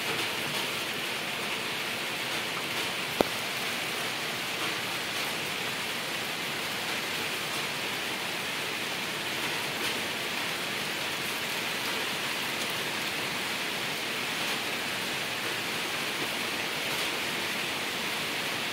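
Steady hiss, with one sharp click about three seconds in.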